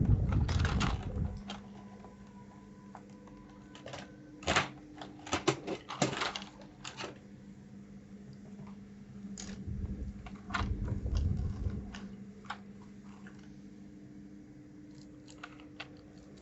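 Irregular clicks and clacks of plastic keycaps on a mechanical keyboard as the keys are handled and pressed, with a couple of dull handling rumbles near the start and around ten seconds in.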